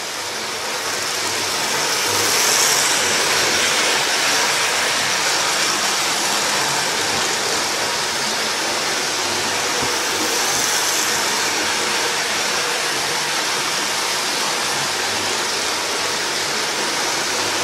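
Hornby model trains running round an oval track: a steady whirring rattle of small motors and wheels on rail, swelling each time a train passes close, about every eight seconds.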